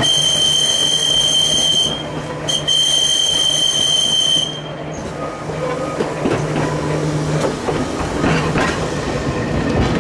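Manx Electric Railway tramcar's wheels squealing on a curve: a loud, steady high-pitched screech, broken briefly about two seconds in, that stops about four and a half seconds in. The tram then runs on with a rumble and a few sharp clicks from the wheels over the rail joints.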